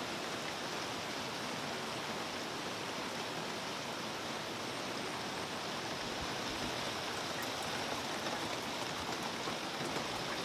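Steady rain falling on grass, trees and a pond's surface, an even hiss.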